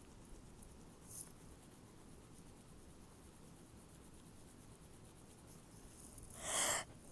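A person stifling a sneeze: after a quiet stretch with a brief faint hiss about a second in, a single short muffled burst of air comes near the end.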